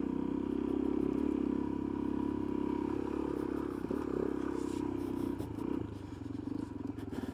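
Suzuki DR-Z400S single-cylinder four-stroke engine running steadily under way. The engine note softens and drops about six seconds in, as when the throttle is eased off.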